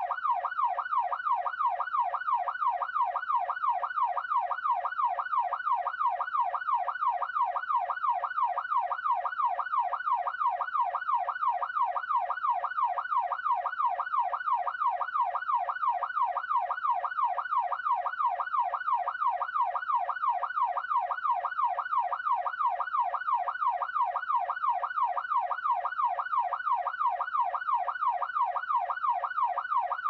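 Electronic police siren sound effect in a fast yelp: one tone sweeping rapidly up and down, about two to three times a second, steady and unchanging throughout.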